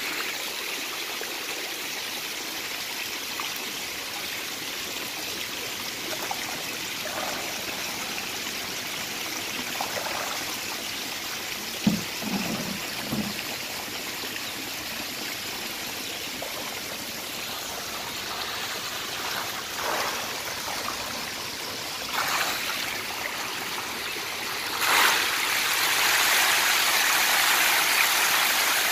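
Steady splashing of water pouring from an inlet pipe into a fish tank, with occasional louder splashes. About 25 seconds in, a louder, steady churning splash starts as a crowded mass of magur catfish thrashes at the surface.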